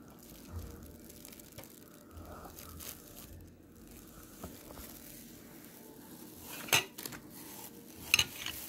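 Faint rustling and crinkling of food packages being handled on a table, then two sharp knocks about a second apart near the end as drinking glasses are set down on the wooden tabletop.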